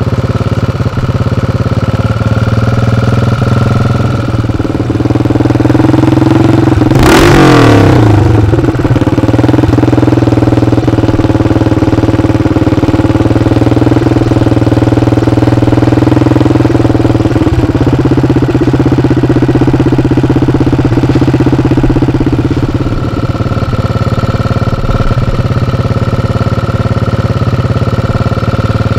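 1974 CCM scrambler's BSA-based four-stroke single-cylinder engine running on the stand. It idles, is revved sharply about seven seconds in, runs faster and louder for about fifteen seconds, then drops back to idle near the end.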